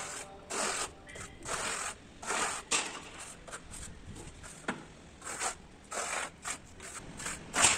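A plastering trowel scraping across a textured plaster wall in short, irregular strokes, about one or two a second, while the texture pattern is worked in.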